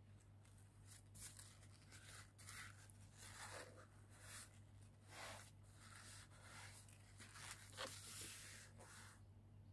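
Faint rustling and crinkling of a paper towel as a hand lifts and crumples it on a tabletop: a run of short swishes over a low steady hum.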